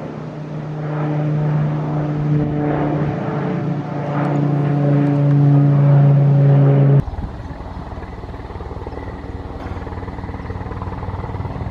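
A single-engine propeller aircraft drones overhead and grows louder over several seconds. About seven seconds in, the sound cuts to a helicopter's rotor beating steadily with a fast, even chop.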